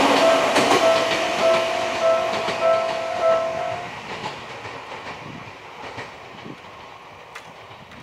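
Japanese level-crossing alarm ringing its repeating electronic ding, just under two a second, and stopping about four seconds in as the crossing clears. Underneath, the rumble of a passing train fades steadily away.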